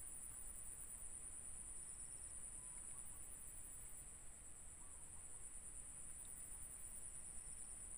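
Steady high-pitched insect drone from the swamp grass, with a faster pulsing trill higher up that comes and goes, over a faint low rumble.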